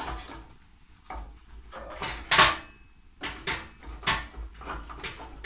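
Short pieces of scrap pine 1x2 dropped into the top feed opening of a cold metal rocket stove, knocking and clattering against the metal in a string of irregular knocks, the loudest a little over two seconds in.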